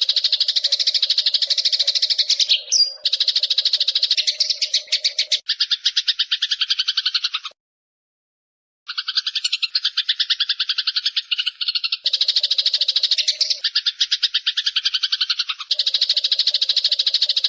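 Eurasian tree sparrow chattering in a fast, unbroken trill of rapid high-pitched pulses, looped as a song-training track. It changes abruptly at edits and cuts out completely for about a second and a half midway.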